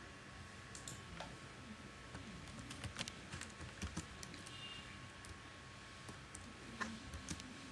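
Faint computer keyboard keystrokes and clicks, irregular and spaced out, as a filename is typed and a save dialog is worked.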